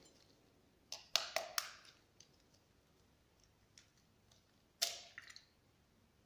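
Eggs tapped and cracked against the rim of a glass mixing bowl. There is a quick run of four sharp taps about a second in, and one more crack a little before the end.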